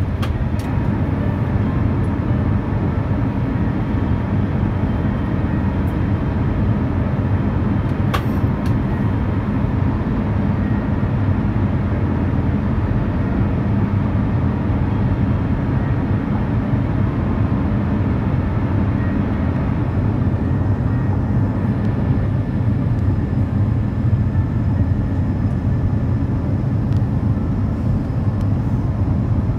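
Steady cabin noise inside an Airbus A350-900 on approach, heard from a window seat beside the wing and its Rolls-Royce Trent XWB engine: an even, low rumble of airflow and engine running.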